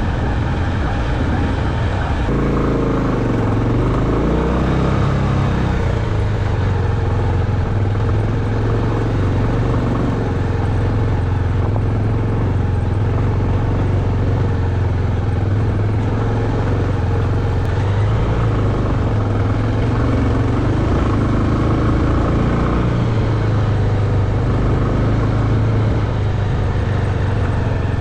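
Motorcycle engine running while riding, with road and wind noise. The engine note dips and climbs again a few seconds in, then holds steady.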